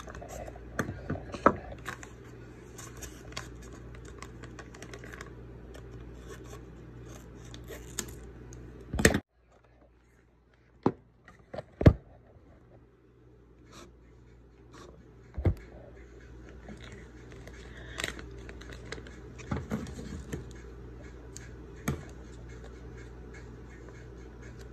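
Irregular clicks, taps and scratching of things being handled around a hair-dye mixing bowl at a tabletop, over a steady low hum. The sound drops to near silence for about a second some nine seconds in, then the scattered taps go on.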